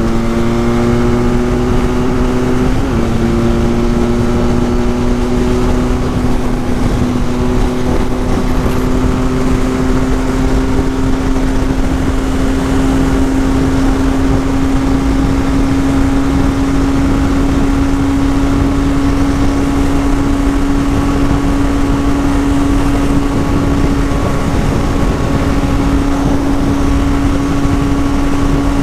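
Benelli 502C's parallel-twin engine running at a steady cruise, its note climbing slowly as the bike gathers speed, with wind rushing over the microphone.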